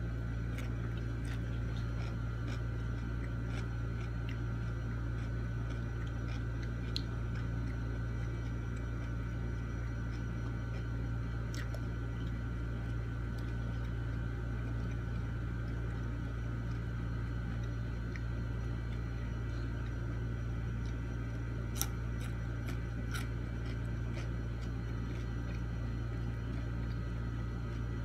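Quiet eating with the hands: faint chewing and a few small clicks and taps over a steady low hum that runs the whole time.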